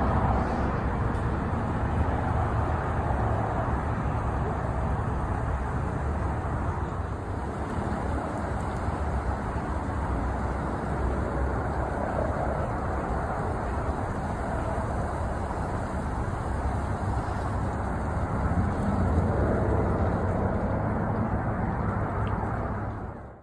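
Air ambulance helicopter's rotor and turbine noise, a steady heavy whir with a low rapid beat. It swells slightly near the end, then cuts off abruptly.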